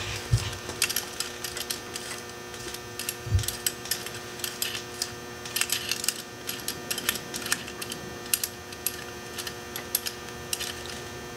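Light metallic clicks and taps from hands and a small tool working the inside pin out of an ATV front brake caliper, with a dull bump just after the start and another about three seconds in. A steady electrical hum runs underneath.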